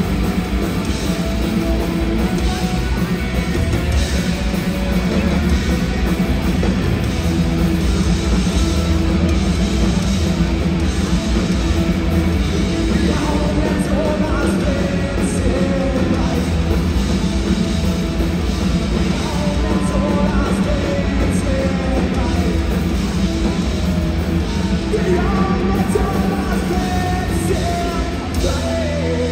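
Live punk rock band playing loud, with guitars, drums and singing; the level dips a little near the end.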